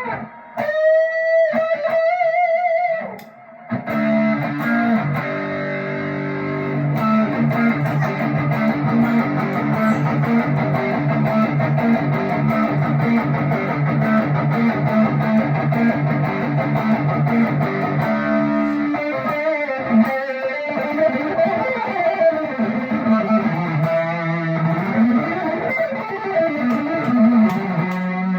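Squier Classic Vibe '50s Stratocaster partscaster with Wilkinson pickups played through an amp. For the first few seconds there are bent notes with vibrato, then held chords for about fifteen seconds. In the last third the notes swoop down and up in pitch with the Wilkinson tremolo arm.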